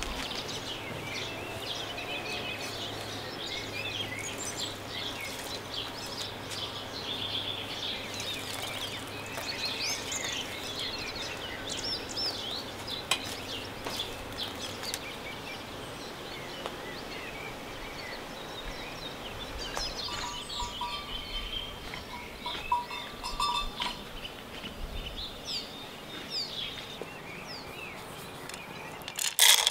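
Birds chirping and calling, many short high calls over a steady outdoor hiss.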